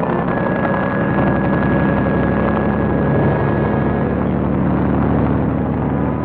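Motor vehicle engine running steadily as it drives, with a thin high tone held over it for the first four seconds or so.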